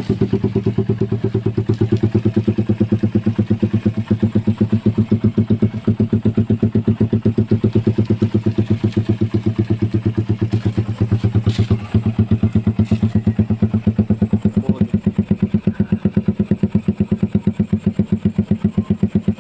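Motorcycle engine idling through a Daeng Sai 4 aftermarket exhaust pipe, a steady, even run of exhaust pulses.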